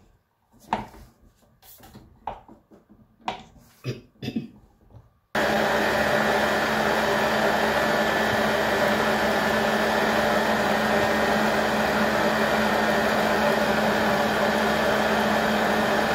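A few clicks and knocks, then about five seconds in an electric tilt-head stand mixer switches on abruptly and runs steadily, a loud even motor hum with a whine, beating the butter, quark and egg mixture.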